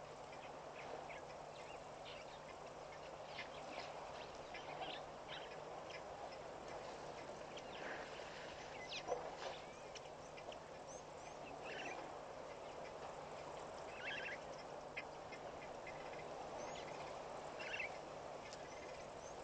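Birds calling in short, scattered notes over a steady wash of water running over rocks, with a faint steady low hum beneath.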